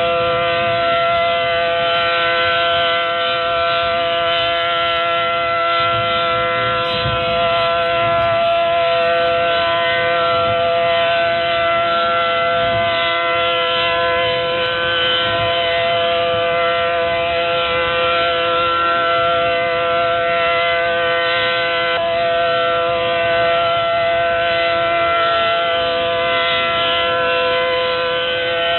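ACA Allertor outdoor warning siren sounding a steady alert tone during a test, several pitches held together without rising or falling, just beginning to drop in pitch at the very end. It is heard from inside a moving car, with low road rumble underneath.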